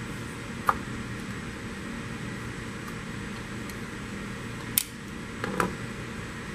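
Steady hum of room ventilation with three short, sharp clicks: a utility knife cutting a small roller in half and the cut halves being handled on the bench.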